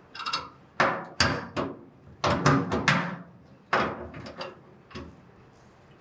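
Steel battery tray clanking and knocking against the car's sheet-metal floor pan as it is shifted and lined up with its mounting holes: a run of about ten sharp metal knocks.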